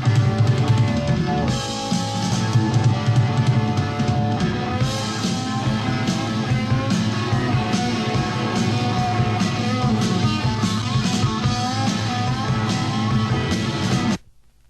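Rock band recording played from the original vinyl: drum kit and electric guitar playing full out, then the track stops abruptly near the end.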